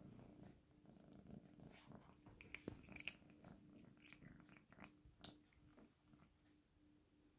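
Faint purring from a long-haired tortoiseshell cat in a plastic cone collar as it eats dry treats, with scattered crunches and clicks of chewing, the loudest few about three seconds in.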